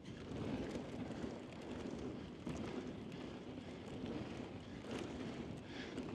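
Mountain bike rolling fast down a dusty dirt trail: steady tyre noise on loose dirt with scattered light clicks and rattles from the bike, and wind rushing over the microphone.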